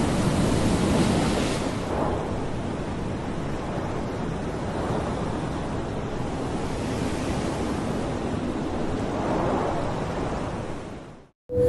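Steady rush of wind, as of flying through the air at speed. It is a little louder in the first two seconds and fades out near the end.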